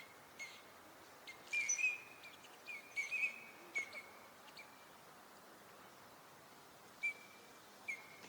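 Eurasian teal calling: short, high whistled calls, some in quick pairs and runs over the first few seconds, then a pause and two more single calls near the end.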